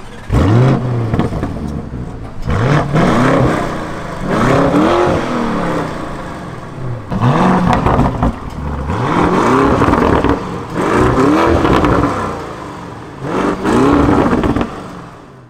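Lamborghini Urus twin-turbo V8 engine revved repeatedly, each rev rising in pitch and falling back, about six or seven times.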